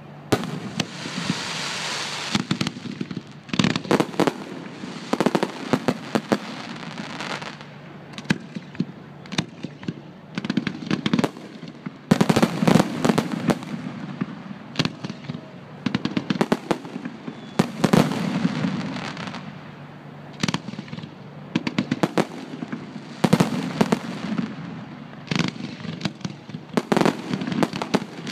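Fireworks display: aerial shells launching and bursting in a steady barrage of bangs, with dense runs of rapid pops a little before halfway and again later on.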